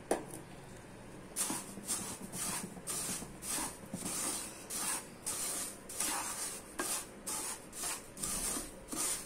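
Wooden spatula stirring semolina as it roasts with ghee in a pan: dry scraping and rustling strokes, about two a second, starting a little over a second in.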